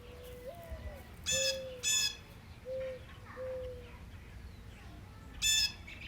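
A dove cooing softly: one long note that swings up and back down, then three shorter notes, a pattern typical of a mourning dove. Over it another bird gives loud, short, harsh squawks, two close together about a second in and one more near the end.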